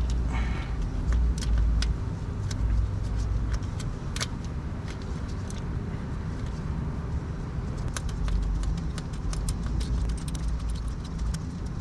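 Scattered, irregular sharp metallic clicks and clinks of a hand tool and bolt on the wire harness bracket as it is bolted back in the engine bay, over a steady low rumble.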